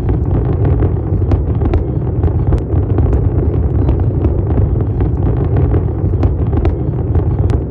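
Fireworks display with many aerial shells bursting at once: a continuous low rumble of overlapping booms, with many sharp pops and crackles on top.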